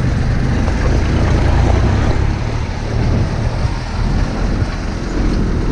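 Dump truck's diesel engine running steadily, a loud low sound with a noisy hiss above it.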